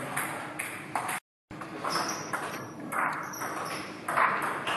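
Quiet pause between table tennis rallies in a large hall: a few light taps from the ball and short scuffing noises. The sound cuts out completely for a moment about a second in.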